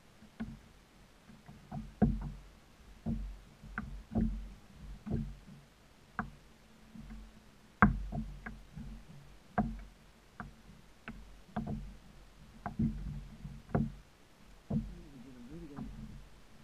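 Spinning reel being cranked to bring in a hooked fish from a kayak, with irregular sharp knocks and clicks on the boat, about one or two a second.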